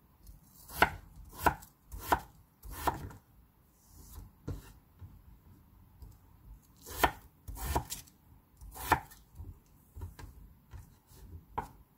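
Chef's knife slicing a raw peeled potato on a thick wooden cutting board, with sharp knocks as the blade strikes the board. There are four knocks in a quick even run near the start, then more scattered ones.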